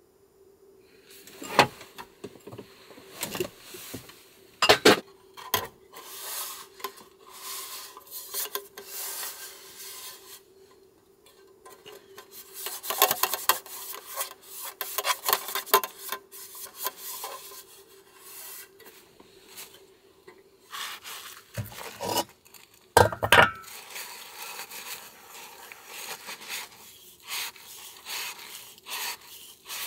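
Dishes and utensils being handled: rubbing and scraping with light clinks and a few sharper knocks, the loudest about a second and a half in, near five seconds and around twenty-three seconds. A faint steady hum runs underneath.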